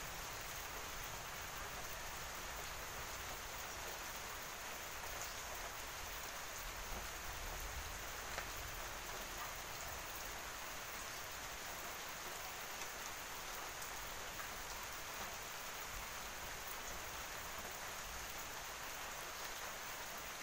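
Steady, even hiss with a few faint soft ticks, much like light rain falling.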